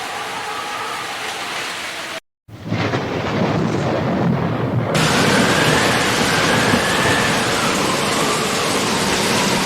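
Heavy rain falling steadily with a low rumble of thunder. A short gap just after two seconds leads into a louder stretch of rain, with the thunder rumbling for about two seconds after the gap.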